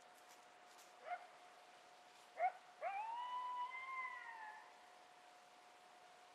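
Coyote calling: two short rising yips about a second apart, then one long howl that swoops up, holds for about a second and a half and sags away.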